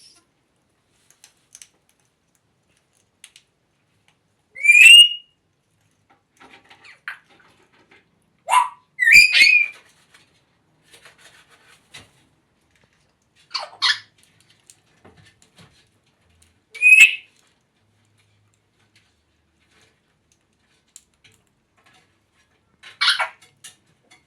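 African grey parrot giving short whistles and squawks, about six separate calls with pauses between them, some sliding up in pitch.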